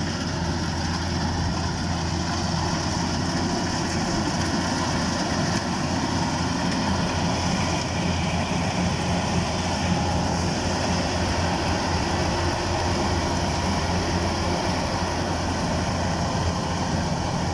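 Kubota DC-105X combine harvester running steadily, a continuous low engine drone with machinery noise.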